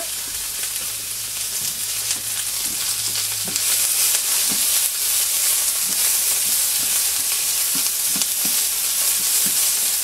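Chopped vegetables and turkey kielbasa sizzling in hot olive oil in a cast iron pan while being stirred, with small scrapes and knocks of the utensil against the pan. The sizzle grows louder about four seconds in.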